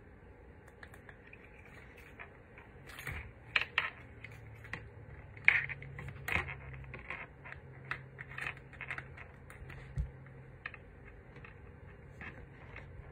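Irregular light clicks and taps, a few a second, from fingers pressing and tapping on a portable touchscreen monitor and its edge.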